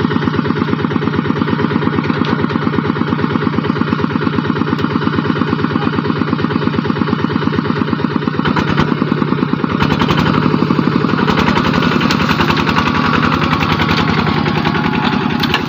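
Single-cylinder diesel engine of a two-wheel walking tractor running with a rapid, even thudding while hauling a loaded trailer out of mud. About nine seconds in it gets louder as it works harder.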